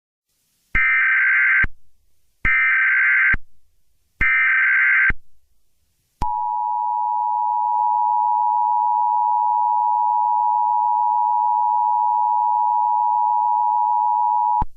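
Emergency Alert System header: three short bursts of digital data tones, then the two-tone EAS attention signal held steady for about eight seconds.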